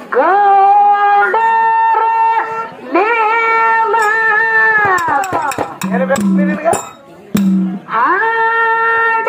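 A woman singing a Kannada folk song into a microphone, holding long, steady high notes and sliding smoothly between pitches. Around the middle the line slides down and breaks off, with a few sharp hits and two short lower notes before the held singing resumes near the end.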